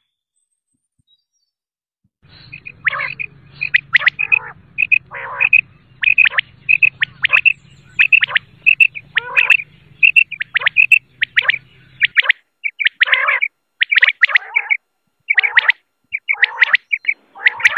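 Quail calling: quick runs of short, sharp chirps, about two or three a second, mixed with longer calls that drop in pitch. The calls start about two seconds in, with a faint low hum under them until about the middle.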